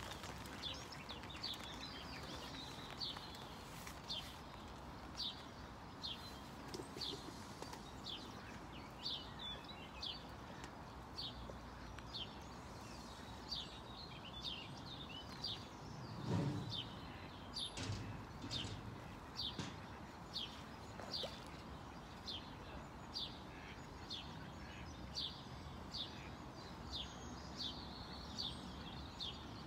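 A small bird repeating one short, high chirp over and over, a little faster than once a second, over steady outdoor background noise. About halfway through there is a dull thump and then a sharp click.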